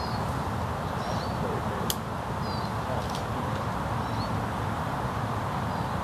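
A small bird chirping, short high calls every second or so, over a steady low outdoor rumble; a single sharp click about two seconds in.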